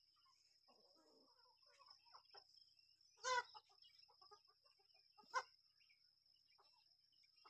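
Chickens clucking faintly, with two louder calls about three and five seconds in, over a steady high-pitched tone.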